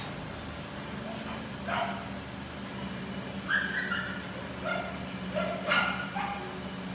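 Several short, high-pitched whining calls, spread over several seconds, above a steady low hum.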